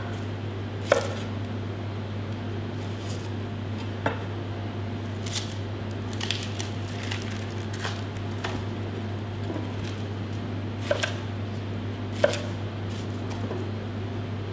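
Knife cutting banana shallots on a plastic cutting board: scattered taps and crunches a second or more apart, over a steady low hum.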